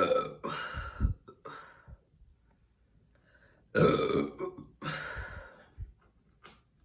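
A woman burping loudly and deliberately. One burp trails off in the first second, another comes about four seconds in, and a shorter one follows.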